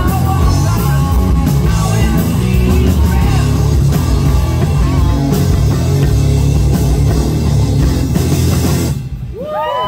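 Live rock band playing loud, with guitars, bass and drum kit, then stopping abruptly about nine seconds in; a few high sliding tones follow the stop.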